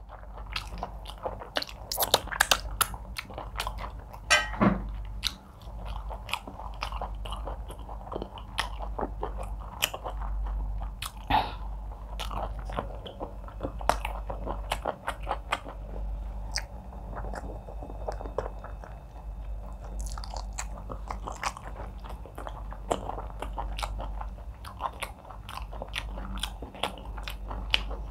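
Close-miked chewing and eating of egusi soup with fufu, fish and meat: continuous chewing with many short, sharp mouth clicks.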